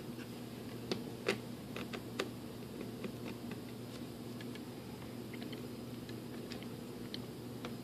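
Light clicks and taps of a small plastic servo cover, screws and a screwdriver being handled and lined up on a glider wing. A few sharp ticks come close together in the first couple of seconds, then sparser ones, over a steady low hum.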